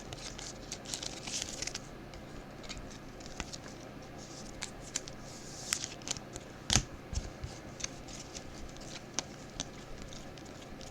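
Trading cards being handled and sorted: soft rustling with scattered sharp clicks, the loudest about seven seconds in.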